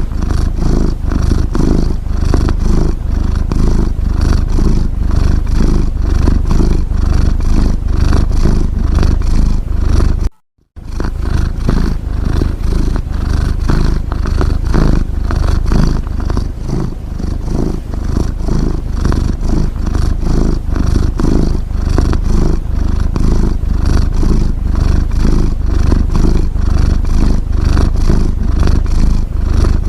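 A cat's low, rapid rumbling, continuous and steady, of the kind heard from a resting cat purring or snoring. It cuts out for a moment about ten seconds in, then resumes.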